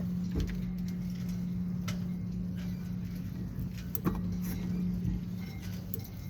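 A motor running steadily with a low hum, with scattered light clicks and knocks over it.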